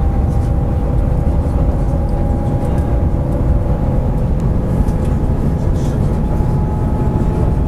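Steady low rumble and rush of the Shanghai Maglev heard from inside its passenger cabin as the train accelerates at high speed, with a faint steady whine above it.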